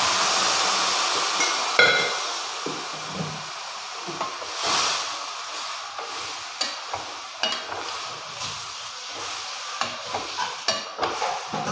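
Pressure-cooked beef pieces sizzling in hot masala in a metal pan, the sizzle loudest at first and fading over the first few seconds. A steel spoon then stirs the meat, scraping and clinking against the pan again and again.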